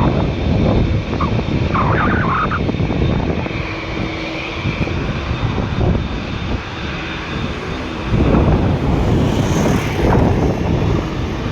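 Jet airliner's engines running loud near the runway, a dense roar with a steady high whine that drifts slightly in pitch midway.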